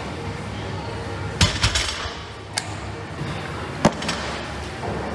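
Loaded deadlift barbell with Eleiko bumper plates set down on a rubber gym floor: a heavy thud about a second and a half in, followed at once by the plates rattling and clanking on the bar. A couple of single sharp metal clinks come later.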